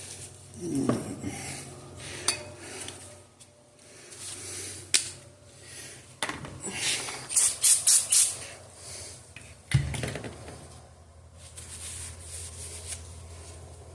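Metal engine parts and hand tools being handled: scattered clinks and clicks, a quick run of loud clicks about seven to eight seconds in, and a thump just before ten seconds.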